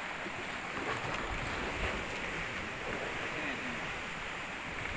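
Steady wash of wind and sea water, with wind rumbling on the microphone.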